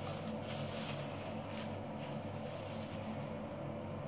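A steady low machine hum, with faint soft rustling of a paper tissue being handled in the first part.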